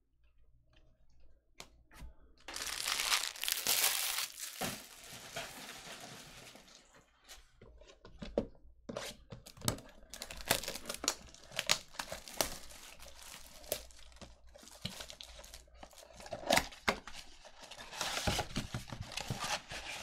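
Trading card packaging being torn and crinkled by hand: a long loud stretch of ripping and rustling a few seconds in, then a run of short rips and clicks as the cardboard box and card packs are handled, loudest near the end.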